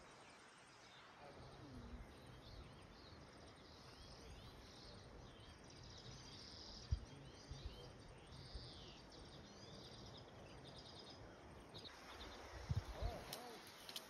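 Faint birdsong chirping over a quiet outdoor background, with a few soft low thumps about halfway through and near the end.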